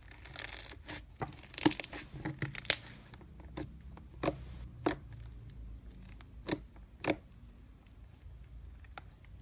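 Slime squished by hand through badminton racket strings: a dense burst of wet crackling and popping for the first three seconds, then single sharp pops about every half second to second that thin out toward the end.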